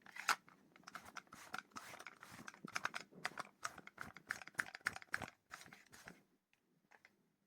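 Rapid irregular clicks and rustles of a jacket being handled, stopping about six seconds in.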